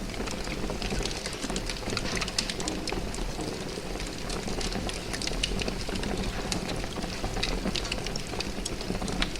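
Large fire burning steadily: a low rumble of flames with dense, irregular crackling and snapping throughout.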